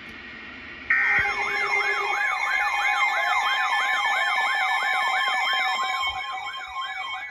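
Emergency alert siren tone: a short electronic burst about a second in, then a rapid electronic yelp that sweeps up and down about three times a second over steady tones. It fades a little near the end.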